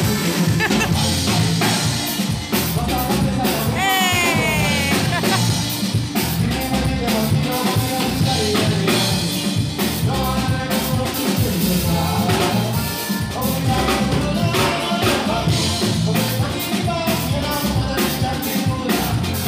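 Band music with a singer over keyboard and drum kit, with a steady beat; a sung phrase slides in pitch about four seconds in.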